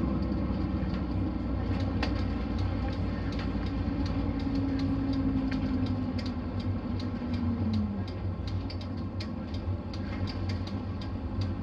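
Nissan Diesel city bus with a Fuji Heavy Industries 7E body, heard from inside: the diesel drivetrain runs with a steady low hum and a whine that slowly falls in pitch and fades out about eight seconds in. After that comes a run of light ticks, several a second.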